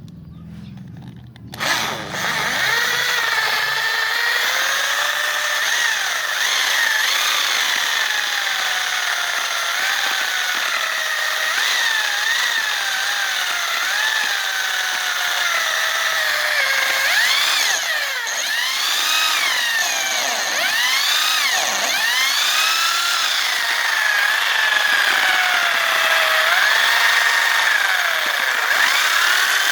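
Homemade banana grinder powered by an old electric drill motor, starting up about a second and a half in and then running with a high whine whose pitch wavers and dips again and again before recovering.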